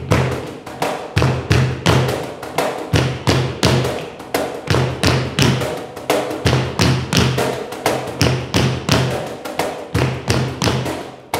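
Tap shoes striking a hard floor in fast, improvised rhythms, several sharp taps a second, over a live percussion accompaniment.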